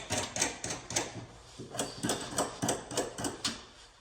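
Rapid, even mechanical clicking, about four to five clicks a second, as a nut is run along threaded hanger rod; it stops a little before the end.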